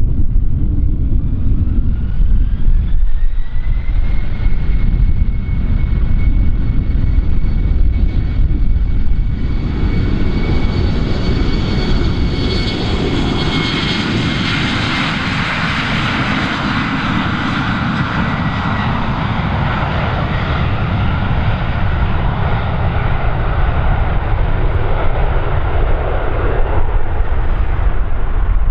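Airliner's engines spooling up for takeoff: a whine rises in pitch over the first few seconds and then holds steady. The engine noise then builds into a loud roar, loudest about halfway through as the aircraft rolls down the runway and climbs past, and eases off toward the end.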